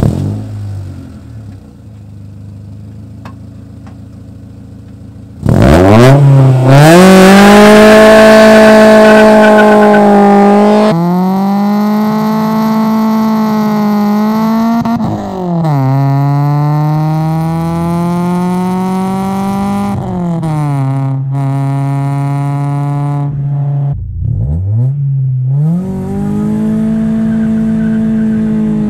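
Honda Del Sol's 1.6-litre D16Y8 VTEC four-cylinder engine and exhaust: a brief rev settling to idle, then about five seconds in it jumps to high revs held steady, as on launch control. It then pulls hard through the gears, the pitch rising in each gear and dropping at each shift.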